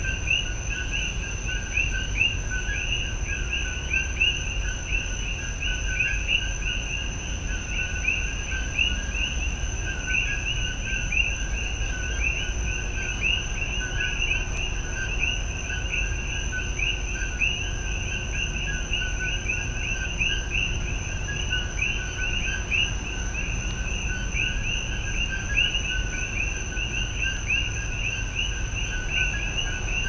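Rainforest ambience: a dense chorus of small creatures chirping, several short chirps a second overlapping without pause, over a steady high-pitched whine and a constant low rumble.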